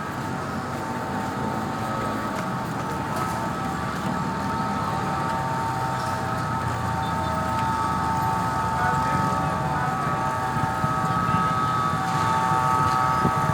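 Motor vehicle noise: a steady low rumble with a continuous whine of several fixed tones, growing slightly louder toward the end.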